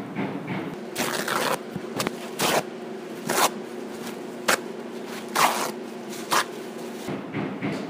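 A series of short scraping strokes at irregular intervals over a steady low hum, which cuts off near the end.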